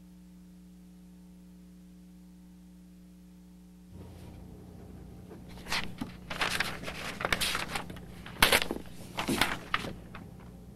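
A steady electrical hum, then from about four seconds in, paper rustling and crackling in several quick bursts as the sheets of a multi-part paper form are pulled apart and handled.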